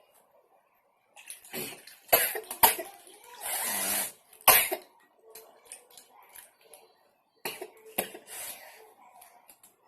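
A woman coughing and gulping while drinking fizzy soda, in short irregular fits with sharp clicks, starting about a second in and coming again near the end.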